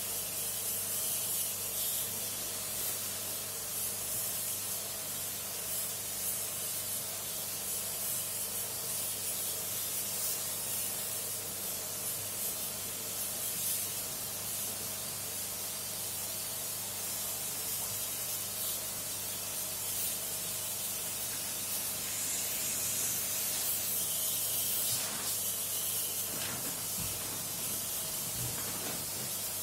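Water spraying with a steady hiss while a dirty air-conditioner filter is washed, over a steady low hum. A few soft knocks come near the end.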